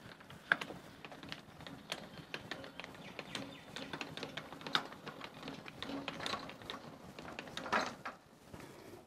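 Kupo 483T three-section wind-up light stand being worked by hand, its winding mechanism and safety mechanism giving a run of quiet, irregular clicks and rattles.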